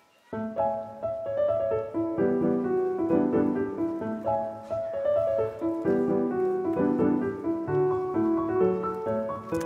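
Background piano music. A piece begins just after the start, following a brief moment of near silence.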